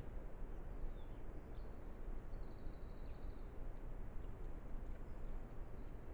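Steady outdoor background noise with faint, distant bird calls: a few short high chirps and one held high whistle about two and a half seconds in.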